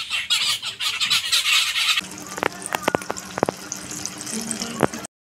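Many birds chirping together in the trees outside a window. About two seconds in, this cuts to battered eggplant fritters (beguni) sizzling in hot oil in a wok, a steady hiss with sharp crackles and pops. The sound cuts off suddenly near the end.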